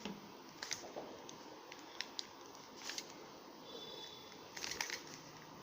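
Rubik's cube being turned by hand: faint plastic clicks of the layers, scattered through the pause, with a quick run of clicks near the end.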